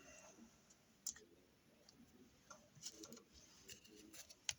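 Near silence, broken by a few faint clicks and light taps of trading cards being handled. The sharpest click comes near the end.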